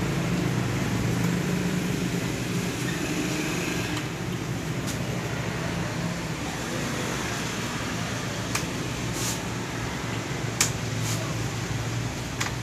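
Steady fan-like hum and hiss, with a few light clicks in the second half.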